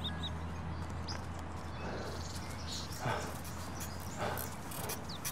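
A dog barking in short yelps about once a second, starting about two seconds in, with birds chirping.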